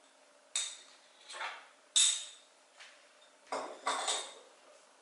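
Small ceramic dishes and a spoon clinking and knocking as they are handled and set down: several sharp clinks, the loudest about two seconds in with a brief ring, and a quick cluster of knocks a little later.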